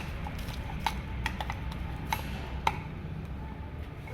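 A spoon clinking against a bowl, about six sharp clicks spread across the few seconds, as soaked rice is added and stirred in. A low steady hum runs underneath.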